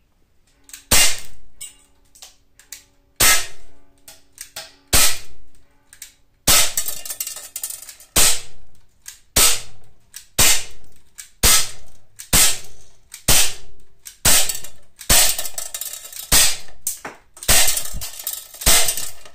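Umarex Glock 19 CO2 BB pistol, a non-blowback model, fired shot after shot at a paper target: about sixteen sharp pops, spaced one to two seconds apart and coming faster toward the end.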